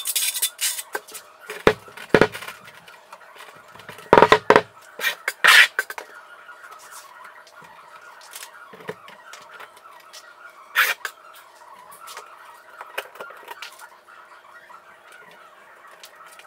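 Steel trowel scraping thin-set mortar across the back of a large-format tile, then a series of knocks and low thumps, loudest about two and four seconds in, as the tile is set against the wall and tapped into the mortar.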